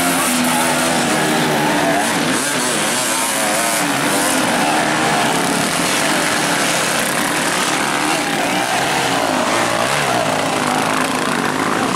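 Several enduro dirt bike engines revving hard in deep mud, their pitch rising and falling as the rear wheels spin for grip.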